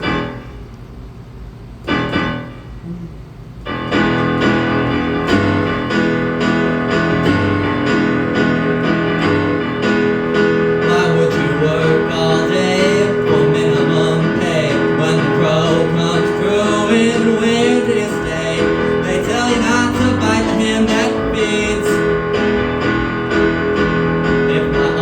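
Jaunty song accompaniment played on a piano or keyboard, starting in full about four seconds in after a few short isolated sounds, then carrying on steadily.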